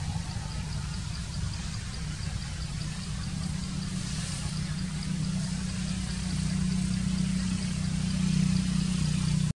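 A motor vehicle's engine running, a low hum that grows louder through the second half. A faint high ticking repeats about three times a second over it.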